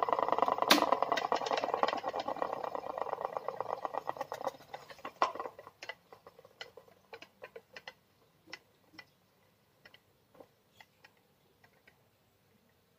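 Homemade plastic propeller spun by the wind of an electric standing fan, rattling with fast clicks. After about four seconds the clicks thin out into scattered ticks that fade away near the end.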